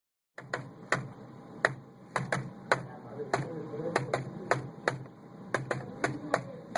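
A series of sharp, irregular clicks or taps, about two or three a second, starting suddenly about half a second in over a low steady hum.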